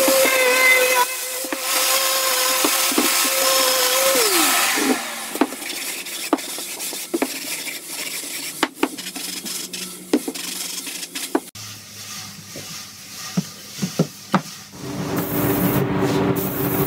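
A random orbital sander on a dust-extraction hose runs with a steady whine on an oak board, then is switched off about four seconds in and winds down. Short rubbing strokes of hand sanding on the wood follow, roughly one a second. Near the end a steady airy hiss with a low hum takes over from the spray-finishing station.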